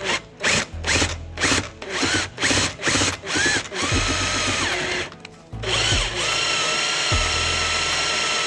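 Cordless drill driving into a stubborn, seized screw. It is pulsed in a string of short trigger bursts, then held on at a steady whine for several seconds.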